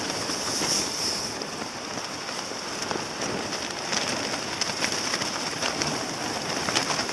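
Wood fire burning in a drum-can stove, crackling with many small irregular snaps over a steady hiss.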